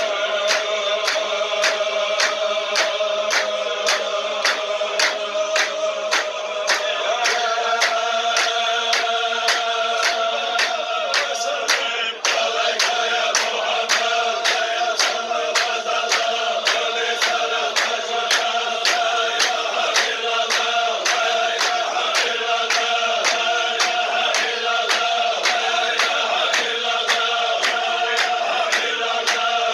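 A group of men chanting in unison, a Sufi zikr, their voices held on long repeated notes, with sharp hand claps keeping a steady beat of about two a second.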